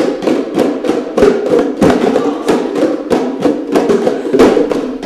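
A group playing bongos by hand together: a busy, steady rhythm of many overlapping hand strikes on the drumheads.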